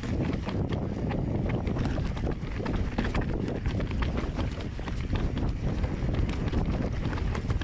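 Mountain bike clattering over a rough, rooty trail: frequent sharp knocks and rattles over a steady rumble of tyres and wind on the microphone.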